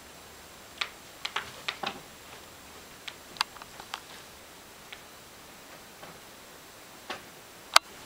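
Irregular sharp clicks and taps, about a dozen, scattered over a faint steady hiss; the loudest comes near the end.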